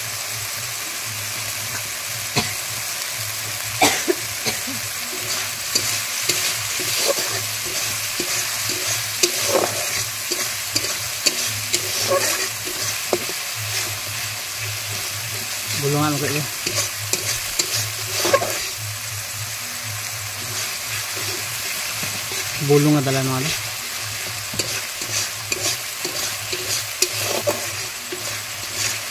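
Spice paste sizzling and frying in a kadai, with a metal spatula scraping and knocking against the pan as it is stirred. The stirring scrapes come irregularly over a steady hiss of frying.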